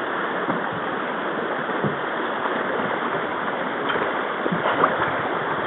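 Shallow river riffle rushing steadily past a canoe, with a few faint short knocks.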